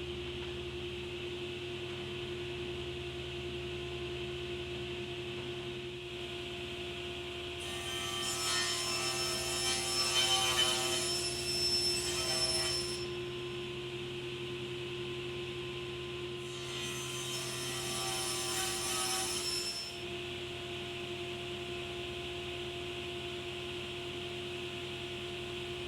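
Steady shop hum, broken twice by squealing, grating wood scraping: once for about five seconds and once for about three.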